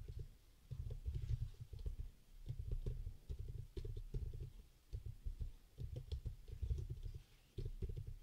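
Typing on a computer keyboard in short bursts with brief pauses. The keystrokes come through mostly as dull low thuds with faint sharper clicks.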